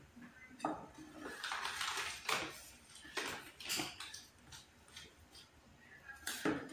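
Wire whisk stirring flour into a wet dough mixture in a plastic bowl, in uneven scraping strokes about once or twice a second.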